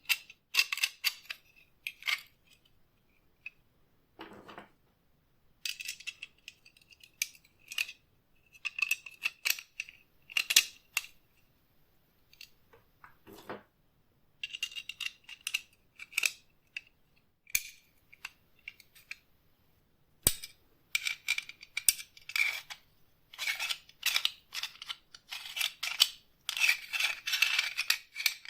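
Steel wire cutters being worked by hand: irregular bursts of metallic clicks and scrapes with a ringing metal tone, separated by short pauses.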